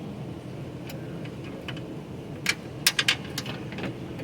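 Handling clatter as the old endgate lock actuator is worked out of a pickup's endgate: a few faint clicks, then a quick cluster of sharp clicks and clacks about two and a half to four seconds in, over a steady low background hum.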